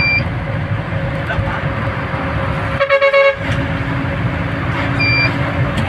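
Vehicle engine and road noise while driving, with a horn honk lasting about half a second around three seconds in and a few short high beeps.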